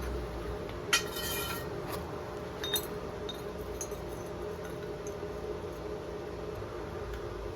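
A hard object clinks sharply about a second in and rings briefly, then a lighter clink follows, over a steady hum.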